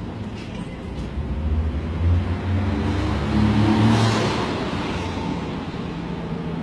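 A motor vehicle's engine running close by as the vehicle passes. Its hum and road noise swell to a peak about four seconds in, then fade.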